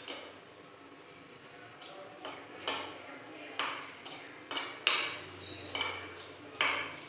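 Hand mixing flour and oil in a stainless steel bowl, knocking lightly against the bowl again and again so that it gives a short metallic ring each time, starting about two seconds in.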